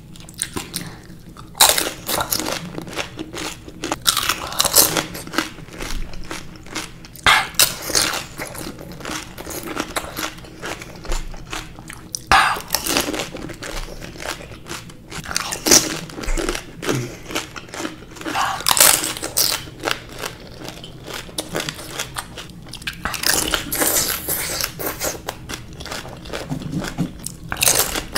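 Close-up crunching and chewing of pani puri: crisp, hollow fried puris filled with spicy water, eaten whole one after another. The crunching comes in bursts every few seconds.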